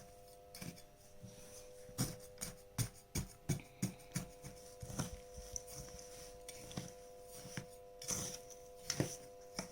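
Ladle stirring sugar into roasted gram flour and ghee in a pot, with irregular soft knocks and scrapes against the pot, over a faint steady hum.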